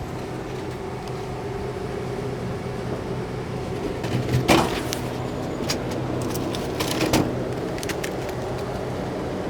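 Vending machine humming steadily, with two clunks about two and a half seconds apart as the purchased item is dispensed.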